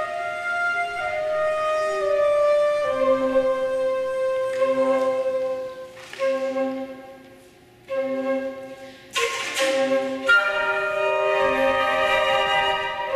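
Flute choir playing an ensemble piece: sustained high notes and chords over a short low note repeated about every second and a half. A brief burst of noise sounds about nine seconds in.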